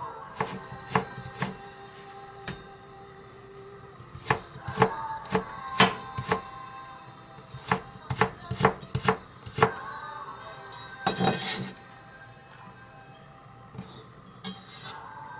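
Kitchen knife chopping a carrot into thin strips on a cutting board: sharp taps of the blade on the board in short quick runs, with pauses between the runs.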